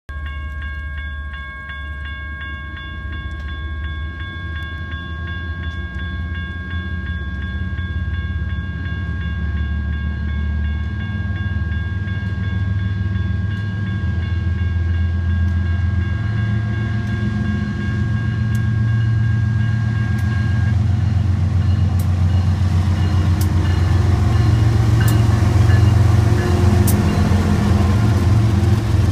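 Railroad crossing warning bell ringing steadily, falling silent about two-thirds of the way through. Under it, the low rumble of an approaching BNSF intermodal train led by GE ET44C4 diesel locomotives grows louder, and near the end the locomotives pass close with sharp wheel clicks over the rails.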